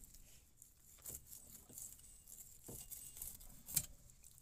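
Knife cutting a mackerel along the backbone on a plastic cutting board: faint scrapes and light clicks, with one sharper click a little under four seconds in.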